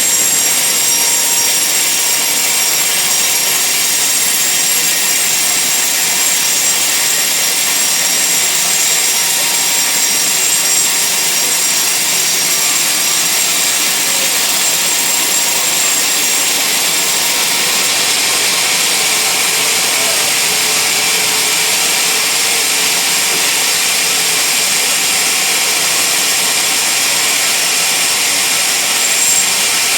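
Band sawmill running steadily, its blade cutting through a large log: a loud, even mechanical noise with high-pitched whining tones.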